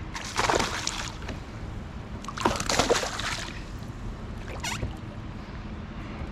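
Water sloshing and splashing in two loud bursts, the first about half a second in and the second near the middle, with a shorter splash after them.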